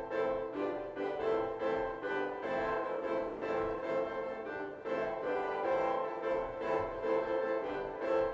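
Karanyi Sounds Polyscape Analogue software instrument playing a layered synth patch in sustained chords, with a light, steady pulse.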